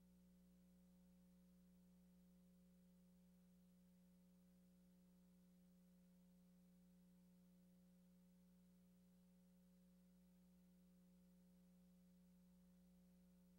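Near silence with a faint, steady low hum that never changes.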